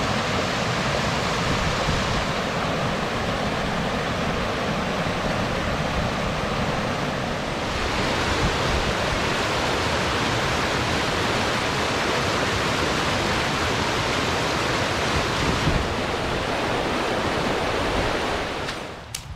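Fast mountain stream rushing over rocks in a steady, loud whitewater rush that drops away just before the end.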